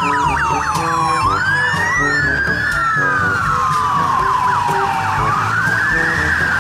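Police motorcycle sirens sounding together. One slow wail rises and falls over a few seconds while other sirens sweep rapidly over and over. Background music plays underneath.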